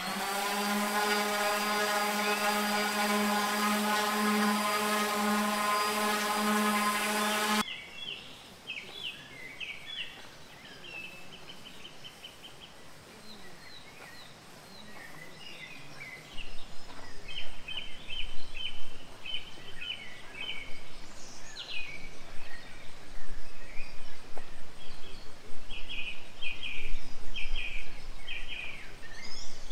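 A steady pitched hum fills about the first eight seconds and cuts off abruptly. After it, small birds chirp and trill in short repeated phrases over a faint background.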